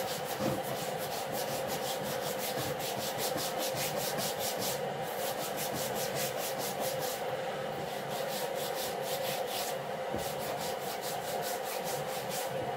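Hands rubbing salt into raw pork belly skin on a wooden chopping board: quick, rasping back-and-forth strokes, several a second. Underneath, a steady hum from a kettle heating up.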